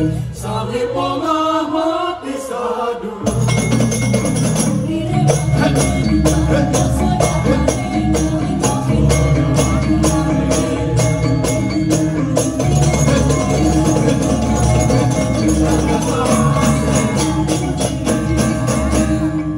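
Balinese sandhya gita: women singing in chorus, then a gong kebyar gamelan comes in loudly about three seconds in and plays on in fast, dense strokes, with deep gong notes beneath.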